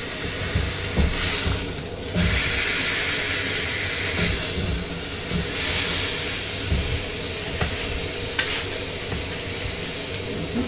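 Venison sizzling in a hot metal frying pan, the sizzle growing louder about two seconds in, with a few light knocks of tongs against the pan as the meat is moved.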